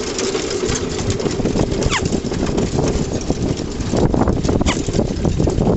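Pony-drawn cart rattling and rumbling as it is pulled at speed over bumpy grass, with many small clicks and knocks from its frame and fittings. A short falling squeak sounds about two seconds in.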